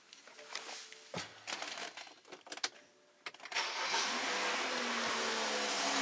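A few clicks and knocks from inside a BMW's cabin, with a faint low hum coming on about a second in. About three and a half seconds in, the BMW N55 turbocharged straight-six cranks, catches and settles into a steady idle.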